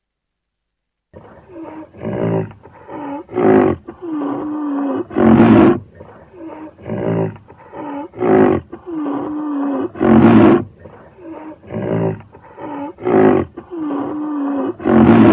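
Rhinoceros calls beginning about a second in: short pitched moaning calls with a louder harsh bellow, the sequence repeating about every five seconds.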